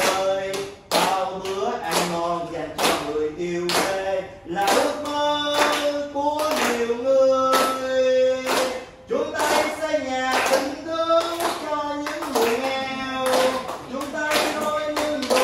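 A voice singing a slow melody with long held notes, while a group claps hands along to the beat.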